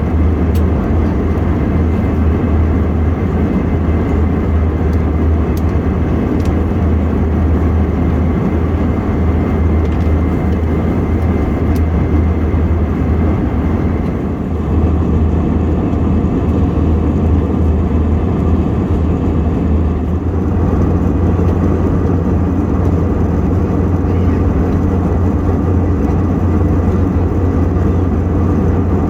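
Steady engine and airflow roar heard inside the cabin of an Airbus A321 airliner, a deep continuous rumble with a faint steady whine above it.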